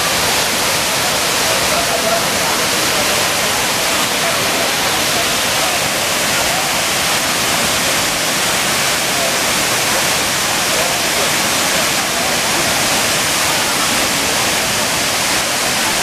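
Large monsoon-swollen waterfall pouring down a rock face in several tiers: a steady, unbroken rush of falling water.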